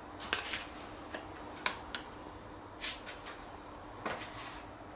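Handling noise: a handful of light clicks and short scrapes, spaced irregularly, over a faint steady hum. The jigsaw is not running.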